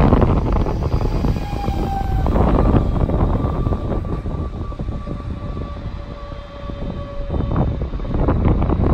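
DB class 425 electric multiple unit pulling out of the station: rumble and rail noise with thin whining tones from its drive, one gliding briefly about a second in and another holding steady for several seconds. The noise eases off about six seconds in and swells again near the end.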